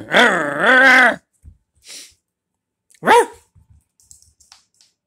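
Small dog vocalizing in play: a wavering, pitched grumble for about a second at the start, then a single short, high yip about three seconds in.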